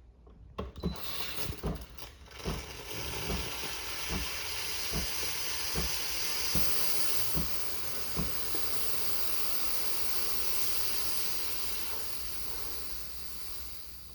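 Steam wand of a Tesslux TXEM-2406 espresso machine venting steam: a steady hiss, starting about half a second in and easing off near the end, with irregular sputtering pops in the first half. The steam is vented to clear the machine when no water comes out.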